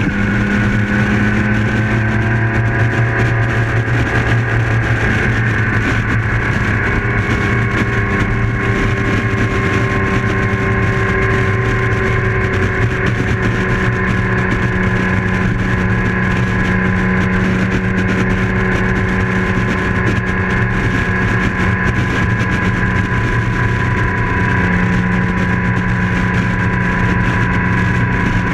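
BMW K1600 GT police motorcycle's inline-six engine running steadily at cruising speed, its engine note holding nearly level over a constant rush of wind and road noise.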